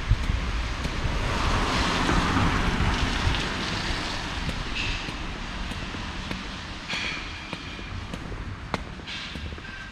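A car passing on a wet street, its tyre hiss swelling over the first few seconds and then fading, over a steady low traffic rumble. Scattered light ticks sound in the second half.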